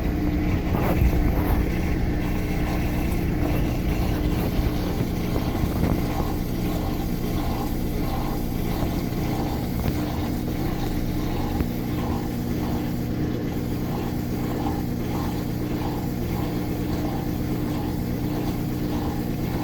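Top-loading washing machine on its spin cycle, the drum spinning with a steady hum, running normally again now that the drain pump jammed by a safety pin has been replaced.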